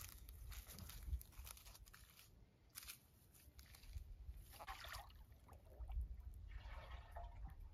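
Faint water gurgling and sloshing as a metal jug is dipped on its side into a ditch and fills, with scattered short rustles before it.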